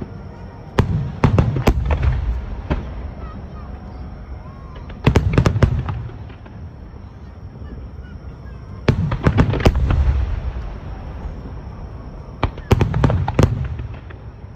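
Fireworks shells bursting overhead in four volleys of sharp bangs, a few seconds apart, each volley trailing off in a low rumble.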